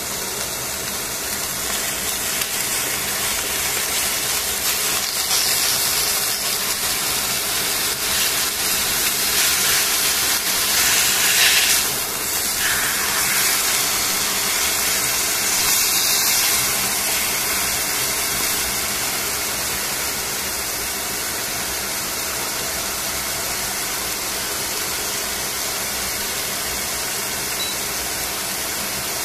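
Chicken pieces sizzling steadily in hot oil in a stainless steel frying pan. The sizzle swells louder from about five to twelve seconds in, as the meat is moved and turned over with tongs, then settles back to an even hiss.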